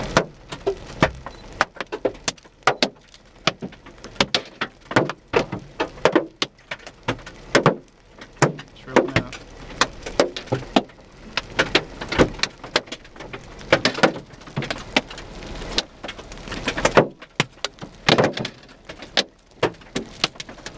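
Large hailstones striking a car's body and glass: a constant, irregular hammering of sharp knocks, several each second, some much louder than others.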